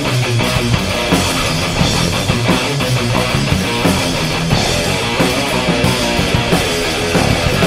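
Rock band playing live: an instrumental passage of distorted electric guitar over bass and a steady drum-kit beat, with no singing.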